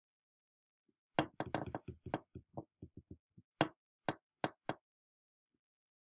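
Stylus tapping and clicking on a tablet screen during handwriting: a quick, uneven run of about twenty small taps, starting about a second in and stopping near five seconds.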